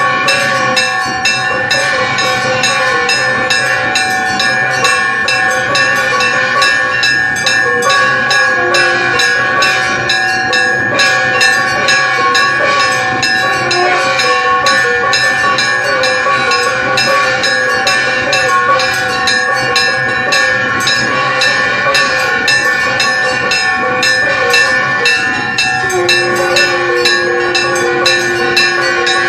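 Temple bells ringing continuously during an aarati, struck over and over so their metallic ringing tones overlap into a steady clangour. A lower held tone joins near the end.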